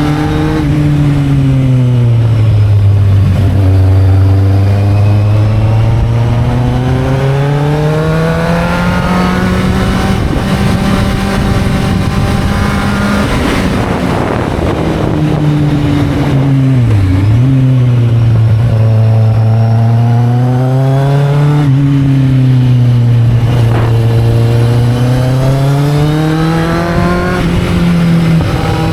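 Kawasaki Z750 motorcycle engine under way, its pitch rising and falling in long sweeps as the bike speeds up and eases off, with one sharp dip about halfway through. Wind rush runs underneath the engine note.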